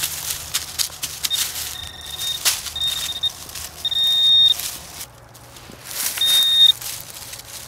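Metal detector giving a high, steady beep over a buried metal target, about five times in short and longer pulses, the loudest a little over halfway through. Scrapes and clicks of digging in the soil come between the beeps.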